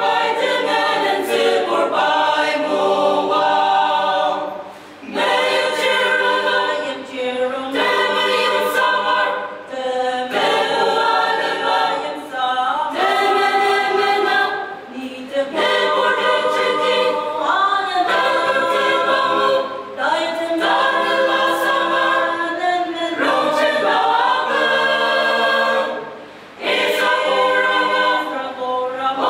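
Mixed choir of women and men singing unaccompanied, in sustained phrases with brief pauses for breath.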